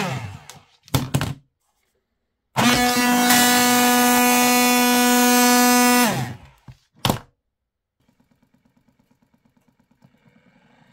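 Massage gun's DC motor and percussion mechanism, overvolted from a bench power supply: it spins down with a falling pitch, gives a short burst, then runs at about 30 V with a loud high-pitched buzz for about three and a half seconds before spinning down again. Near the end it turns slowly at very low voltage, giving faint rapid ticking of about eight beats a second.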